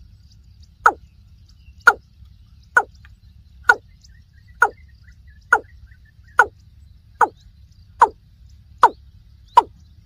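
Watercock calling: a series of short notes, each falling in pitch, repeated about once a second and coming slightly faster towards the end.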